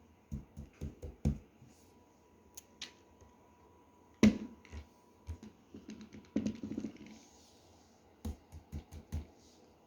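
Small toys being handled: scattered taps and clicks, with one sharp click about four seconds in and a quick run of soft taps around six to seven seconds.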